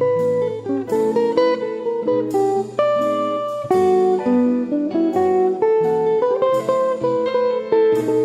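Background music: a plucked guitar melody picking out individual notes at a moderate pace.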